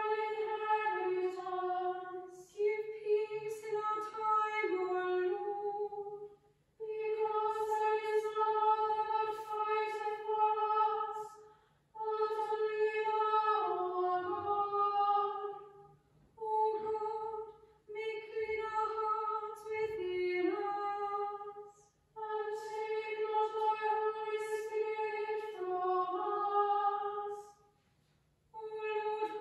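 Small choir of women's voices chanting a liturgical text, holding one reciting note through each phrase and falling in pitch at its end, with short breaths between phrases.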